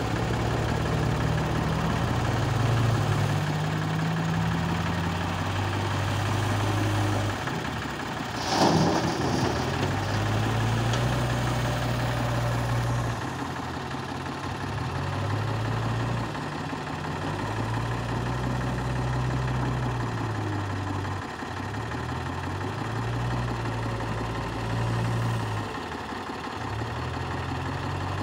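Diesel engines running: the Sonalika DI-35 tractor idles close by while the JCB backhoe loader's engine revs up and down in repeated swells as it works. A brief loud clatter comes about eight and a half seconds in.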